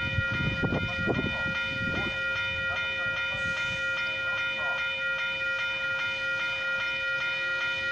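Level crossing warning bell ringing continuously with rapid, evenly repeated strikes, a steady cluster of bell tones: the crossing is active with the barrier booms down for an approaching train. Some low rumbling comes and goes in the first two seconds.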